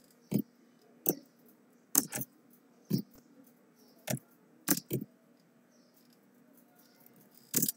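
Computer keyboard keys struck one at a time, about nine separate clacks at an uneven, slow pace, with a pause of a couple of seconds before a last keystroke near the end; a line of text is being typed, partly deleted with backspace and retyped.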